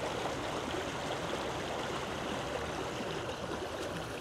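Shallow rocky creek running steadily over stones.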